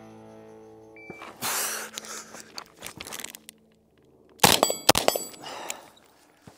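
Background music fades out, then a shot-timer beep sounds about a second in. Clothing and gear rustle as the shooter turns, and an AR-style rifle fires two shots about half a second apart, followed by a high ringing.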